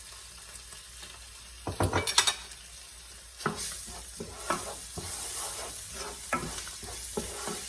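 Onions and ground spices frying in plenty of oil in a pan, a steady sizzle. A spoon knocks against the pan about two seconds in, then the sizzle grows louder and a spoon scrapes and stirs repeatedly as ginger garlic paste goes into the hot oil.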